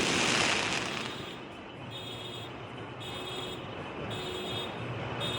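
The reverberating tail of a firework explosion dying away over the first second or so, then steady outdoor background noise with a high electronic beeping that keeps switching on and off.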